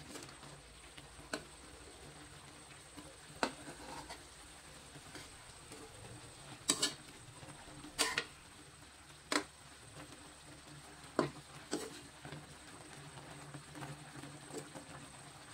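Metal spoon clinking against an aluminium wok several times, a second or more apart, while basting and stirring fish in sauce, over the faint steady sound of the sauce simmering.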